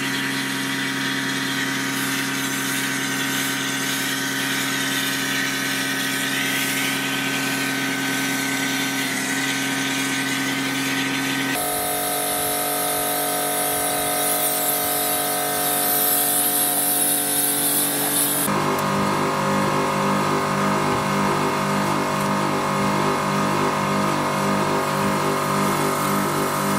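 A Kärcher pressure washer runs steadily, its motor and pump humming, while water sprays onto a car. The tone shifts abruptly twice, and in the last part it takes on an even pulsing beat.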